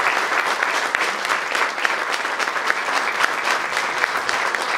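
A group of people applauding: many hands clapping together in a steady patter.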